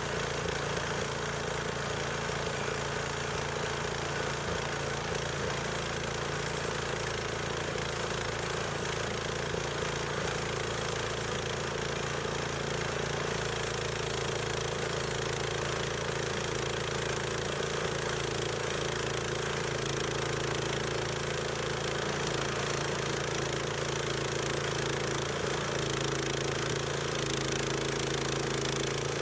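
Harbor Freight portable band sawmill running, its small gasoline engine held at a steady speed throughout.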